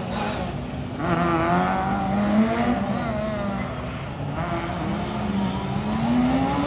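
Rally car engine revving hard on a tight circuit, its note rising and falling with throttle and gear changes; it gets louder about a second in and climbs in pitch near the end.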